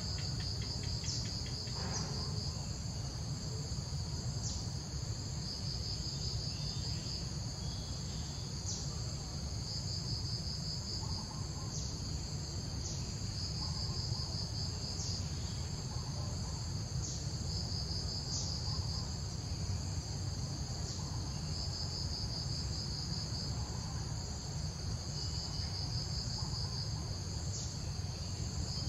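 Insects trilling in the undergrowth, a high, buzzy trill that comes in stretches of a second or two with short pauses, over a steady low rumble.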